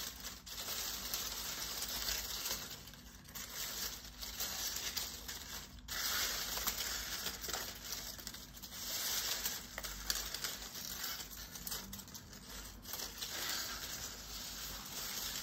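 Dry autumn leaves rustling and crackling as hands rummage and scrunch through a heap of them, in uneven swells that come and go.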